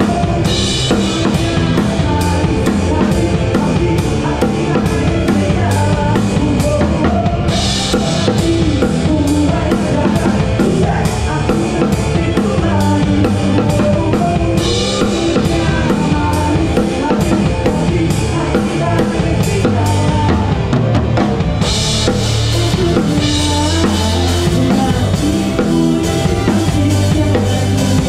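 Drum kit played live with the band, heard close from the kit: a steady groove of kick, snare and hi-hat, with cymbal crashes every several seconds.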